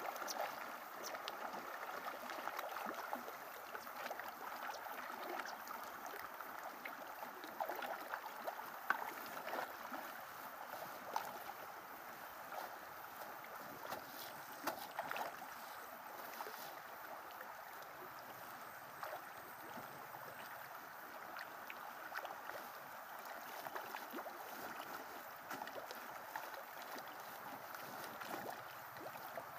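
Faint outdoor ambience: a steady low hiss with scattered faint ticks, with no clear single source.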